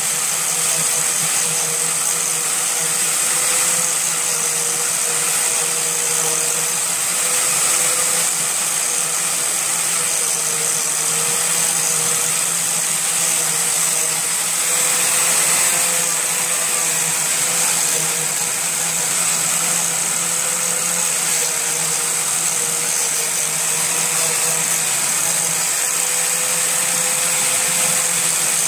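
Corded angle grinder running steadily with a disc pressed against the plastic hood grille, grinding off excess hot glue; the motor's whine wavers slightly as the load changes.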